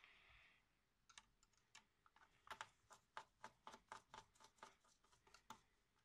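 Faint, rapid clicking of a Phillips screwdriver turning out the small heatsink holding screws on a laptop's metal frame, about three or four clicks a second, after a brief soft rustle at the start.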